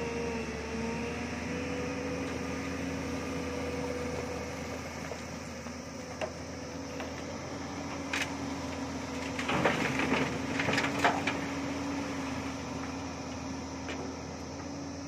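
JCB tracked excavator's diesel engine running steadily. A little over halfway through, gravel and stones tipped from the bucket clatter into the steel bed of a dump truck for about a second and a half.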